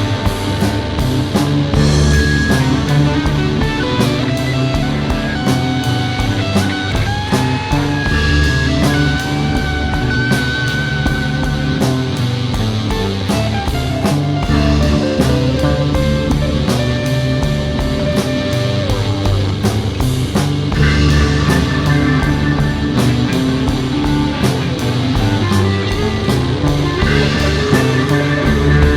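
Instrumental psychedelic rock: a lead electric guitar plays sustained, bending melodic lines over a steady drum kit beat and a bass line.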